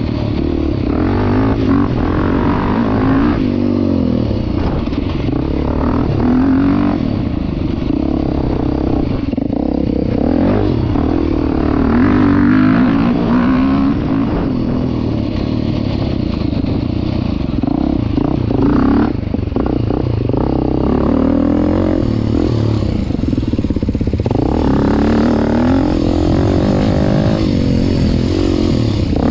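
2023 Beta 390 Race Edition's single-cylinder four-stroke engine running under load on an enduro trail, its pitch rising and falling continually as the throttle is opened and closed.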